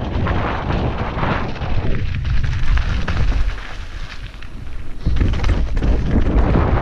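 Mountain bike descending a rough trail: heavy wind rumble on the microphone, with clattering from the tyres and bike over the ground. It eases about two seconds in and comes back hard about five seconds in.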